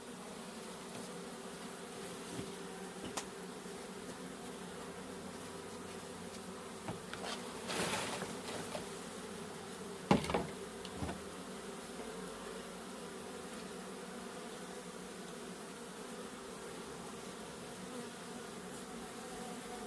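Honey bees buzzing in a steady mass hum from a disturbed colony as its comb is cut out. A few sharp knocks break in, with a scraping rustle about eight seconds in and the loudest knock about ten seconds in.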